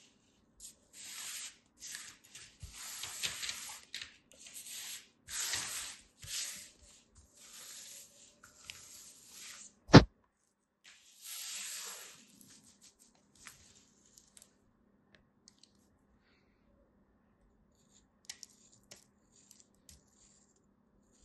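Craft knife blade cutting and scraping through moulded kinetic sand, a gritty crumbling scratch in repeated strokes of a second or so. A single sharp knock about ten seconds in is the loudest sound; after about twelve seconds only faint small ticks and scratches remain.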